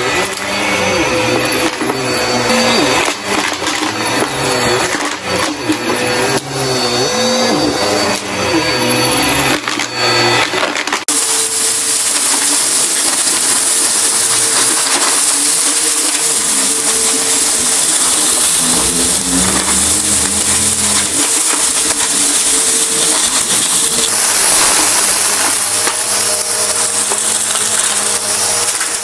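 Bissell upright vacuum cleaner running over rugs, with crunchy debris crackling and rattling as it is sucked up through the brush roll. About eleven seconds in, the sound changes abruptly to a brighter, steadier hiss of the motor and suction as bits of confetti and grit rattle in.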